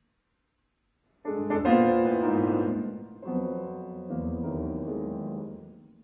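Steinway concert grand piano: after a second of silence, loud low chords are struck and left to ring and die away, then another chord about three seconds in fades out near the end.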